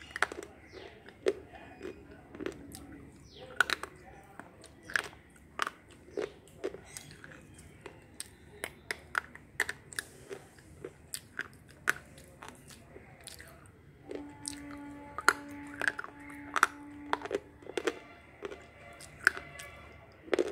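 Slate pencil being bitten and chewed: sharp crunching snaps of the stick breaking between the teeth, about one every half-second to second, with chewing in between. A steady low humming tone runs for a few seconds in the second half.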